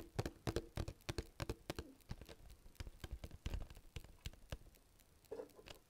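Fingers and nails tapping and handling the hard plastic capsule of a Zuru Foodie Mini Brands toy close to the microphone: quick, irregular taps several a second that stop about a second before the end.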